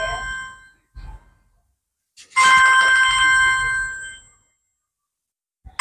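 Mobile phone ringing: a chiming ringtone that sounds and fades, repeating about every three seconds.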